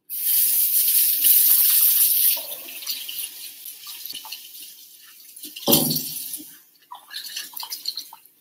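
Kitchen sink tap running at full flow for about two and a half seconds, then splashing more softly as hands are washed under it. A short thump about six seconds in is the loudest moment, followed by a few small clatters near the end.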